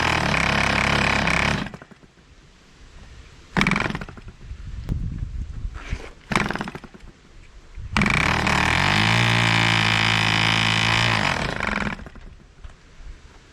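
1947 Drone 4.85 cc diesel model airplane engine firing in short runs and stopping, as in starting attempts: a run of about two seconds, two brief pops, then a steadier run of about four seconds that cuts off near the end.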